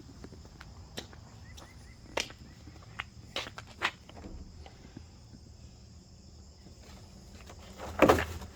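Steady high-pitched chirring of crickets, with a few scattered soft clicks and a louder rustle near the end.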